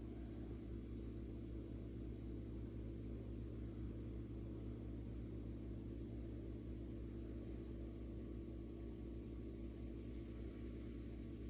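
Steady low hum with a faint hiss, unchanging throughout and with no distinct events.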